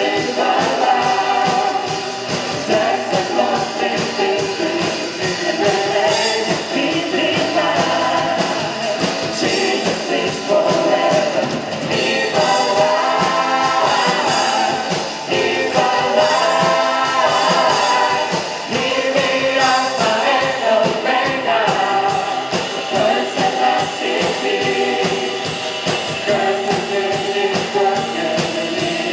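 A live praise band and group of singers performing a contemporary worship song, with a steady beat under the voices.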